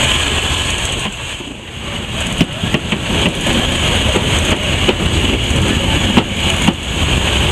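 Steam locomotive running, heard from inside the cab: a steady hiss over a low rumble, with several sharp metallic knocks, two close together about a second apart near the end.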